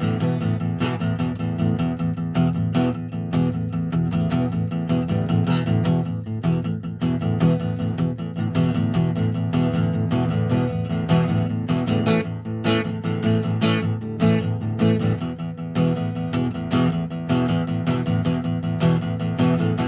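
Instrumental guitar music: a strummed acoustic guitar playing steady chords, with no singing.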